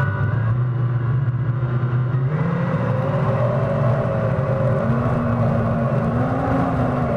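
Electric jet drive of a homemade battery-powered jet kayak running under power, its pitched hum stepping up about two seconds in and again near the end as the kayak speeds up, over a steady low rumble and the rush of water spraying off the hull.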